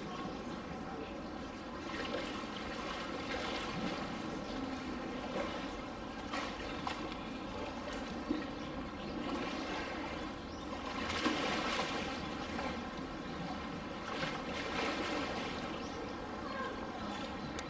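Water in a polar bear pool, running and splashing, over a steady hum. Louder splashes come about eleven seconds in and again around fifteen seconds.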